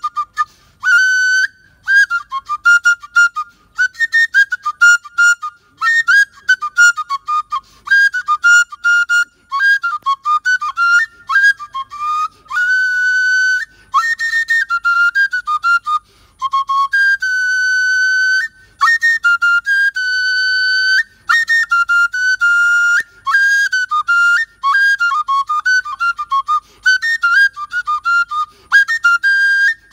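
Igbo oja, a small carved wooden flute, played solo with a high, piercing tone. It moves in short, choppy phrases of quick notes, broken by a few long held notes midway through.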